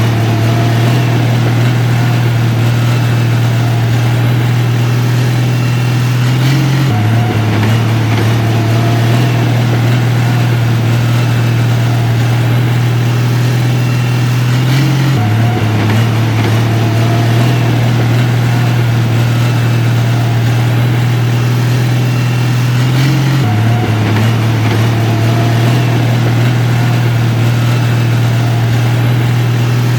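Heavy diesel engine of earthmoving machinery running steadily: a deep, even drone that shifts slightly about every eight seconds.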